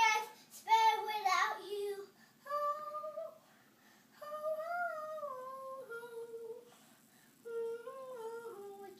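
A child singing a tune, then humming it softly in three short phrases whose pitch steps up and down.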